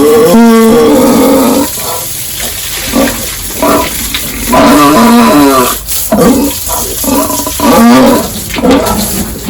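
Pigs squealing loudly in a string of repeated, pitched cries.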